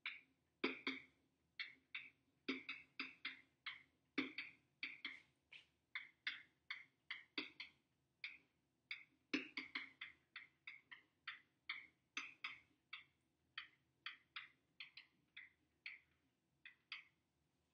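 Faint, uneven light taps and clicks, about three a second, with a couple of short pauses, made while a formula is being written or typed out.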